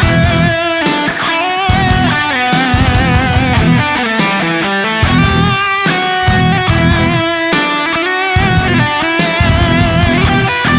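Background rock music with an electric guitar melody over a steady beat.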